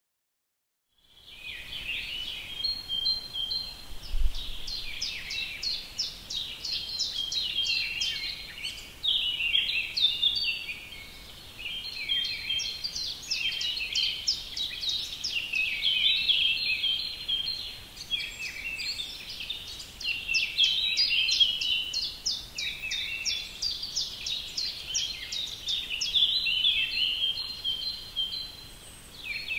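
Songbird singing: a long run of rapid, high trilled phrases, one after another with short breaks, starting about a second in.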